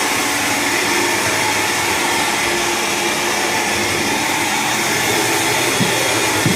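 A steady, loud rushing noise, like a blower running, with a faint hum under it.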